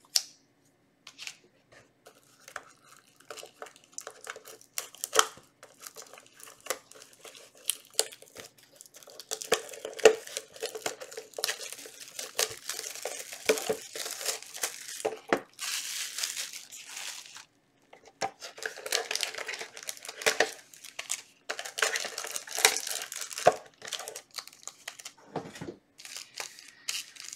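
Trading card packaging being opened: a few taps and clicks of handled cardboard, then long spells of crinkling and tearing as a Yu-Gi-Oh Maximum Gold box and its foil booster pack are torn open.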